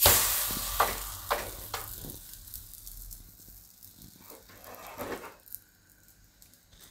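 Water-wetted kulcha dough slapped onto a hot iron tawa: a sudden loud sizzle as the water hits the hot iron, fading away over about four seconds, with a few light knocks.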